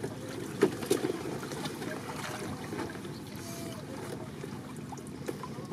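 A sack-wrapped bamboo prawn trap handled on a wooden boat: one sharp knock about half a second in and a few light ticks and rustles, over steady wind on the microphone.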